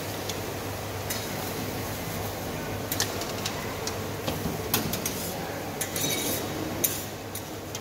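Metal kitchen utensils (a wire-mesh noodle strainer and a ladle) clinking and knocking against a ceramic bowl and steel stockpots, several separate sharp clinks, over a steady low hum.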